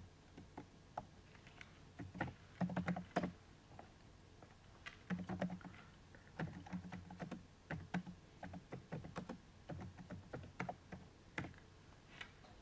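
Typing on a computer keyboard: irregular, quick key clicks with a brief pause about four seconds in.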